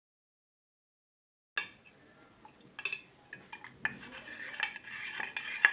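A spoon stirring honey into warm turmeric milk, with repeated clinks and light scrapes against the vessel. The sound starts suddenly about a second and a half in, after dead silence, and the loudest clink comes near the end.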